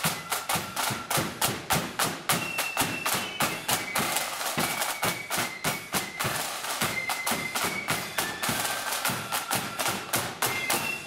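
Marching flute band playing a march: high flutes carry the melody over rapid, steady side-drum strokes.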